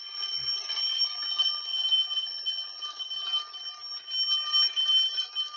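Bell alarm clock ringing: a continuous rapid metallic rattle with steady high ringing tones, starting abruptly.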